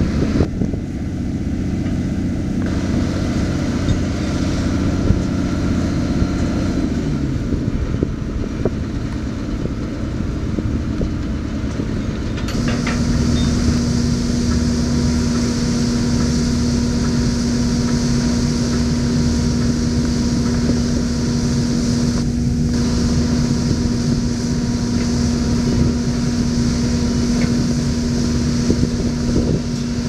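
Vibratory pile hammer and its engine-driven power unit running while driving a concrete sheet pile: a steady machine drone that drops in pitch about seven seconds in, then a louder steady hum with more hiss from about twelve seconds in.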